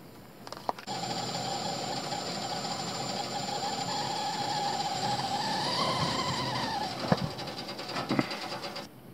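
Stovetop kettle whistling at the boil, one steady wavering note that rises briefly a little after halfway, over a hiss of steam. Two sharp clicks come near the end.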